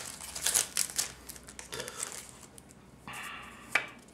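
Foil trading-card booster pack wrapper crinkling in the hands and being torn open, in irregular crackles with a longer rasping stretch about three seconds in.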